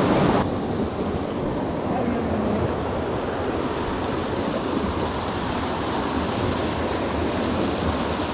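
Small stream's water rushing, a steady, even noise throughout.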